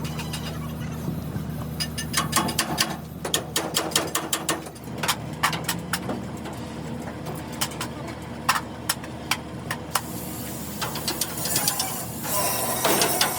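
Many sharp, irregular clicks and taps, at first over a steady low engine hum that fades after about two seconds, with a denser stretch of noise and clicking near the end.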